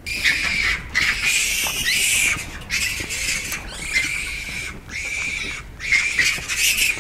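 Japanese macaques screaming: a series of loud, shrill, harsh bursts broken by short pauses.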